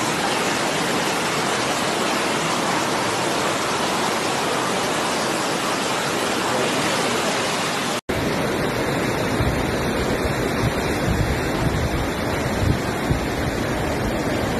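Steady rushing of fast-flowing floodwater. About eight seconds in it cuts abruptly to another stretch of rushing water, with gusts of wind buffeting the microphone.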